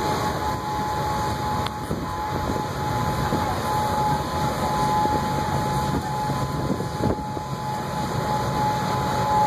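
Wind rumbling and buffeting on the microphone, with a thin steady high tone running under it.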